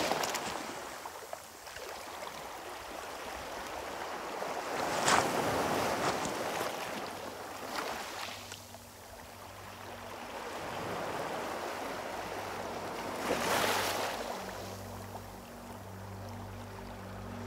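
Small sea waves washing in over rocks and cobbles and fizzing back out between the stones, rising and falling, with two louder surges about five and thirteen seconds in. A low steady hum of held tones comes in about halfway and grows near the end.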